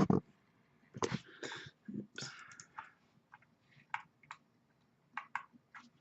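Handling noise from a shrink-wrapped card box: scattered sharp clicks and a few short rustles.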